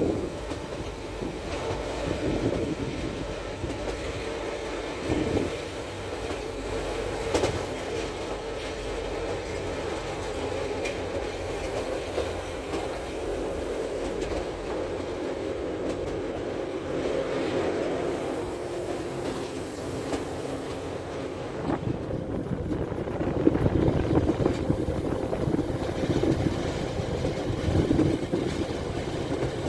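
Appenzeller Bahnen rack train running, heard from a window of the moving car. The motor and gear drive hum steadily, with the odd click, and the wheels clatter over the rail joints, more heavily from a little past two-thirds of the way through.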